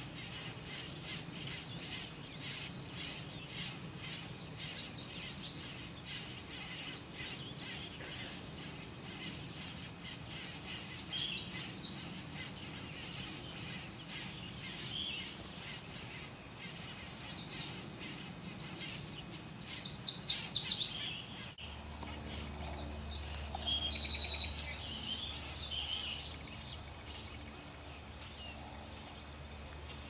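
Small songbirds chirping and calling, a steady run of short high notes, with a louder burst of chirps about two-thirds of the way through.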